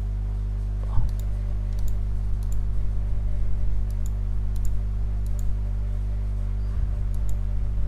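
Computer mouse clicking a few times, light and scattered, over a steady low hum.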